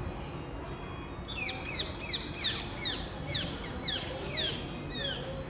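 A bird calling in a rapid series of high, falling chirps, about three a second, starting a little over a second in, over a steady background hiss.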